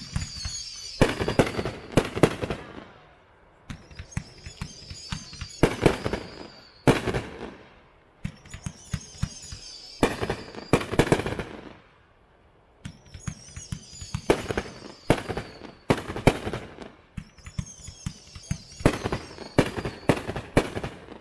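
Multi-shot consumer fireworks cake firing volleys about every four seconds. Each volley is a hissing whistle that falls in pitch as the shells climb, followed by a cluster of sharp, loud bangs as they break.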